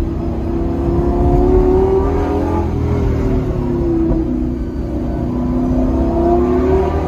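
Car engine heard from inside the cabin, its note rising under acceleration and dropping back several times, with one sharper drop about four seconds in, as when changing gear, over a steady low road rumble.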